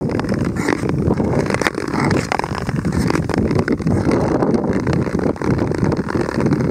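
Wind buffeting the microphone, a steady rumbling rush with a fluctuating level, while moving over open lake ice.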